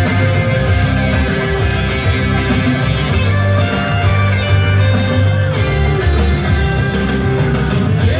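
Dance music playing loudly, with a heavy bass line and held melodic notes over it.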